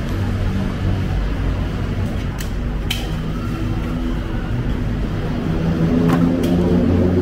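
Busy city street traffic: vehicle engines running with a steady low rumble, with a few sharp clicks, growing louder near the end.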